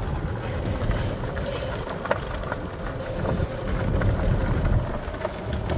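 Golf cart on the move: a steady low rumble of the ride, with wind on the microphone and one light click about two seconds in.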